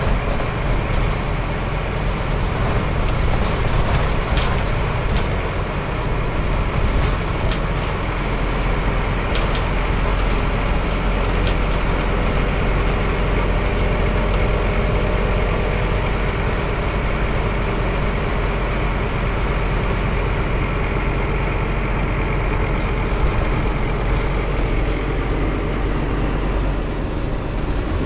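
Cabin noise inside a Scania CN270UB city bus: a steady drone from its diesel engine and running gear, with a few light clicks in the first half.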